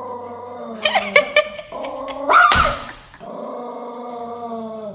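Golden retriever puppy vocalizing: a drawn-out growly whine, a few sharp yips about a second in, and a louder rising yelp around two and a half seconds, then the growly whine again.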